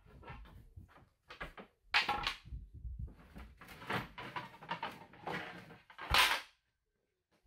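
Wooden boards and scrap pieces being picked up, knocked together and set against a stack: a run of irregular clattering knocks and scrapes, loudest about two seconds in and again near six seconds, then stopping.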